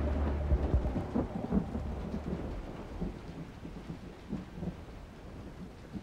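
Thunder rumbling and dying away over steady rain.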